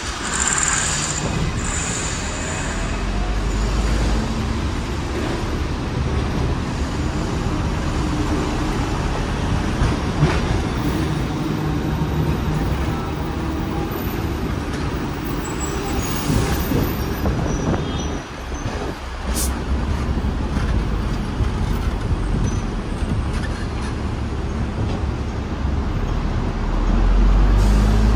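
Hong Kong double-decker tram running along its street track, heard from the upper deck with open windows: a steady rumble of the car on its rails mixed with street traffic, with a few brief clicks and a rise in loudness near the end.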